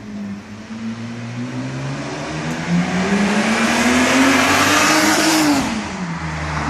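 BMW E36 325i's M50TU 2.5-litre inline-six through its stock exhaust, revving up steadily for about five seconds, then dropping back quickly as the throttle is let off.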